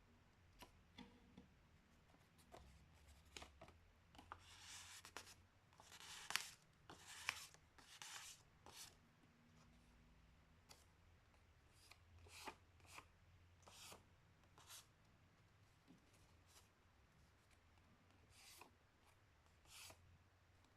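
A sheet of paper being folded and creased by hand: faint, irregular rustles and swipes, with a denser run of louder strokes about four to eight seconds in.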